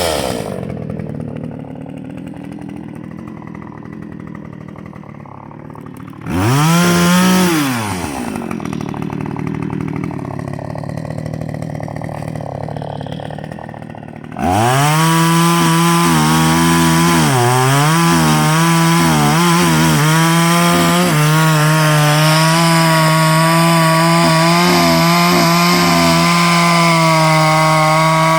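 Vintage Salem Master two-stroke chainsaw engine idling after a rev drops off, blipped up and back down once about six seconds in. About halfway through it opens up to high revs and stays there, its pitch dipping and wavering a little.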